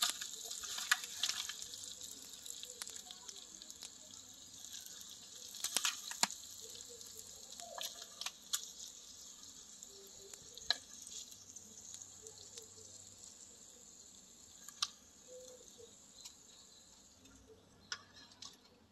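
Dry-fried goat tripe in a metal pan still sizzling faintly while a metal spoon scrapes and clinks against the pan and plate as it is served out, with several sharp clinks. The sizzle fades away near the end.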